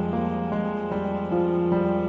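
Slow, sad instrumental background music: sustained keyboard notes changing every half second or so over a steady low drone.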